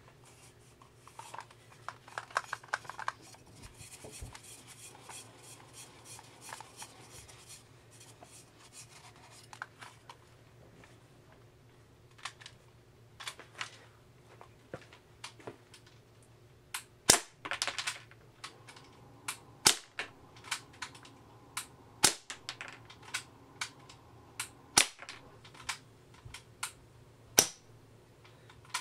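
Suppressed Y&P MK23 green-gas airsoft pistol firing, with BBs striking a paper target. The sharp cracks come singly, with five loud ones about two and a half seconds apart in the second half and smaller clicks between them. The gun was shot in cold weather below 50°F, which the owner says kept it from working well.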